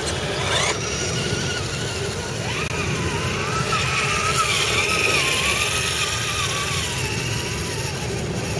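Small electric motors and gearboxes of radio-controlled scale trucks whining as they drive across sand, the pitch wavering with the throttle, over a steady low rumble of wind on the microphone.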